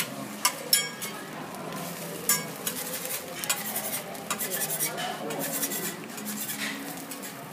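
A metal spatula and fork clinking and scraping on a steel teppanyaki griddle while an egg fries on it. There are several sharp clinks, the loudest twice in the first second and again a little over two seconds in.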